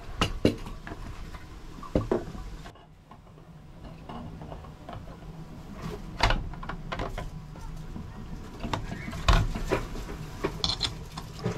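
Clicks and knocks of a small folding gas stove, its plastic case and a gas canister being handled on a wooden table, with heavier knocks about six and nine seconds in as the stove is fitted to the canister.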